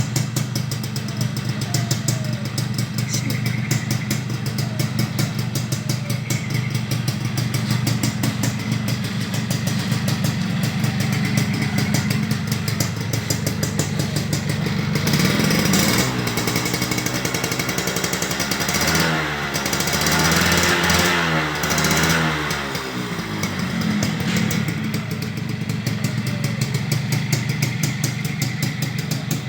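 Suzuki TRS two-stroke motorcycle engine idling with fast, even firing pulses. About halfway through it is revved briefly, then revved up and down several times before settling back to idle.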